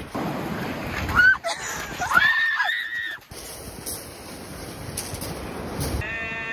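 Surf breaking on a shingle beach, with a person giving two high-pitched yells in the first three seconds, the second one held for nearly a second. After that the steady rush of the waves runs on alone, and music starts right at the end.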